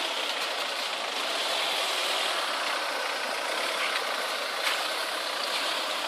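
A car engine idling steadily.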